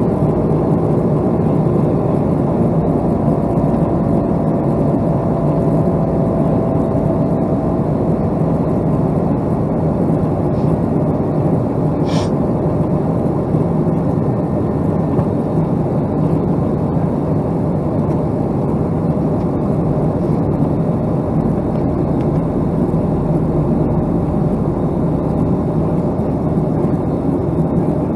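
Steady jet engine drone of a Boeing 757-200, a loud even rumble with a faint steady hum, broken once by a brief click about twelve seconds in.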